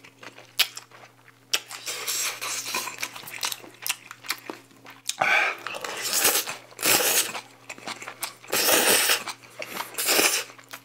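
Close-miked eating of stir-fried glass noodles (japchae): several loud slurps as the noodles are sucked in off a spoon, a few seconds apart, with chewing and small spoon clicks on the bowl in between.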